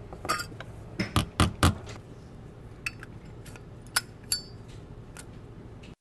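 About ten sharp metal clicks and clinks from an old Zippo lighter's metal case and parts being worked on by hand with pliers at a bench, spread unevenly, with a quick run of four loud ones about a second and a half in.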